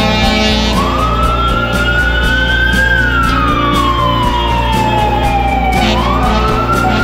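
Emergency-vehicle siren on a wail setting: the pitch climbs for about two seconds, falls slowly for about three, then climbs again near the end. It comes from an NYPD Emergency Service Unit truck running with its lights on.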